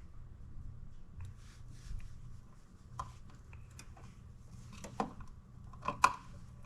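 Small rustles and scrapes, then a few sharp clicks and snips with the loudest near the end: wire cutters or strippers and the wires being handled while a wall outlet is rewired.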